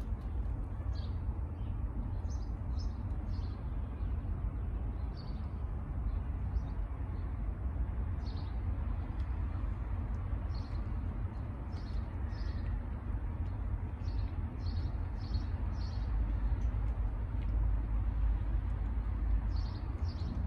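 Small birds chirping, short high calls repeated every second or so, over a steady low rumble.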